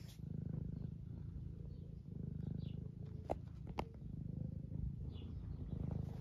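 Semi-long-haired domestic tabby cat purring close up, the low purr swelling and easing with each breath: a contented cat being stroked. Two short sharp clicks come a little past the middle.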